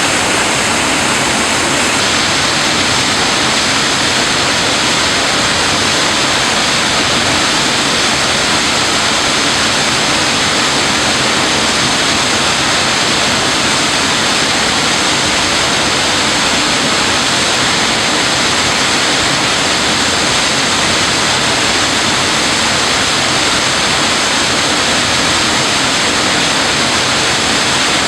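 Falling water rushing over a waterfall: a loud, steady roar that does not change or break.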